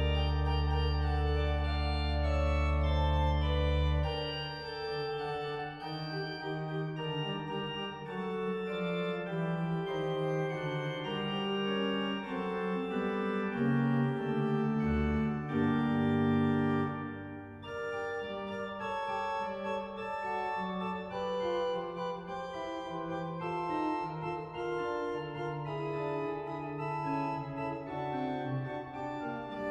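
Sampled pipe organ (Hauptwerk set of the 2000 Eisenbarth organ, Friesach) playing a fugue in several interweaving voices, registered with flutes and a principal: Rohrflöte 8', Spitzflöte 4', Quinte 2 2/3' on manual I; Nachthorn Gedackt 8', Prinzipal 8', Flageolet 2', Larigot 1 1/3' on manual II. A loud sustained bass chord breaks off about four seconds in, and lighter moving lines carry on.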